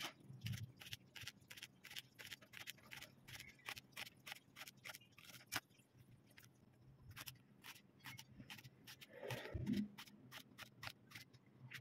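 Kitchen knife slicing an eggplant into rounds on a wooden chopping board: a run of light, quick knocks as the blade goes through and meets the board, several a second, pausing briefly about six seconds in before starting again.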